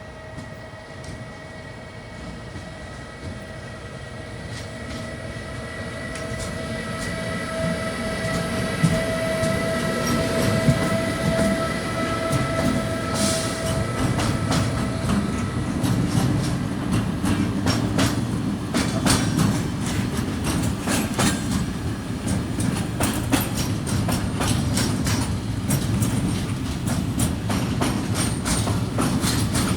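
Railpool Siemens Vectron locomotive approaching with a steady, rising whine that grows louder over the first half. It then passes, and the freight wagons roll by with a low rumble and rhythmic clickety-clack of wheels over the rail joints.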